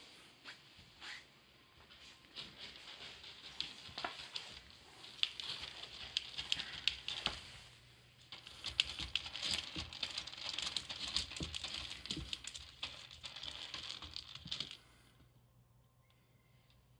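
Cat scratching and digging in pellet litter in a plastic litter box, with rapid rattling, crinkling scratches and clicks of pellets. The scratching stops suddenly near the end.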